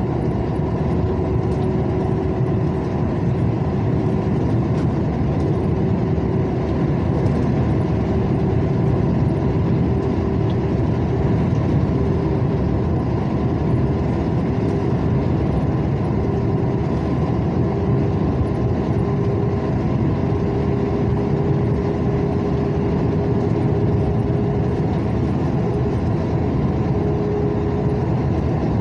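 Steady running noise of a road vehicle cruising on a highway: engine and tyre noise on asphalt with a constant hum.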